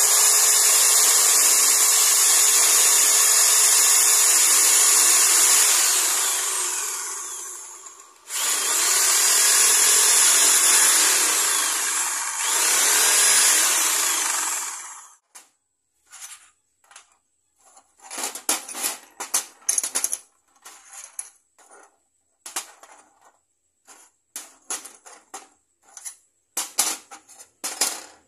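Handheld electric power tool running at full speed for about six seconds, winding down, then run again in two shorter spells before it stops. After that come scattered sharp taps and clicks.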